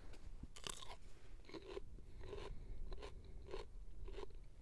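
A person chewing a crunchy mini cucumber close to the microphone: a steady run of crisp crunches, about three every two seconds.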